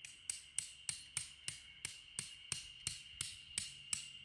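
Tent peg being hammered into gravelly ground, a steady run of sharp strikes about three a second.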